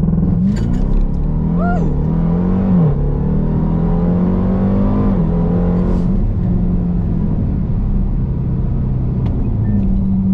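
Car accelerating hard from a launch-control start, the engine pulling up through the gears. The engine note climbs and drops back with each of several quick upshifts in the first five seconds, then holds a steady note.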